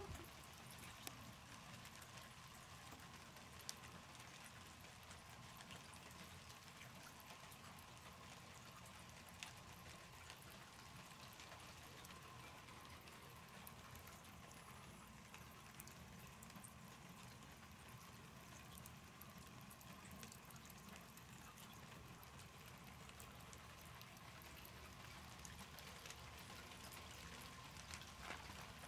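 Near silence: faint room tone with a thin steady hum and a few soft, isolated taps.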